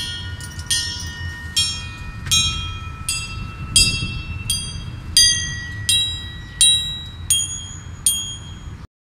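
A homemade chime of hanging metal pipes of graded lengths, struck one after another about every 0.7 s, each note ringing on. The notes go from the long pipes to the short ones and climb in pitch toward the end. The playing cuts off suddenly near the end, over a low background rumble.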